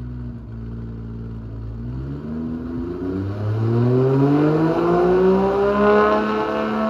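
Exhaust note of a 1997 Nissan Skyline GT-R (R33) RB26DETT straight-six, converted to a single T78-33D turbo and breathing through an HKS titanium tail muffler: idling steadily, then revved up, rising in pitch and loudness over about three seconds, and held at the higher revs near the end.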